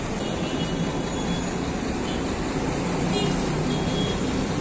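Steady street traffic noise: a low rumble of vehicles on the road, with a short high jingle about three seconds in.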